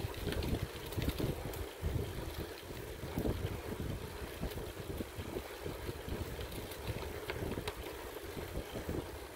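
Wind buffeting the microphone of a camera moving at cycling speed, a rough, uneven rumble.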